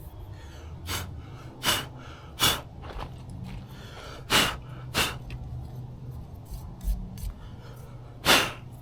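About six short, sharp knocks and clinks of parts and tools being handled while an outboard lower unit's water pump is taken apart, the last one the loudest, over a steady low hum.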